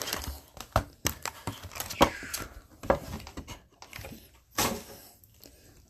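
Hockey card packs and cards being handled: irregular crinkling and clicking of foil pack wrappers and cards, with two louder rustles about two seconds in and again past the middle.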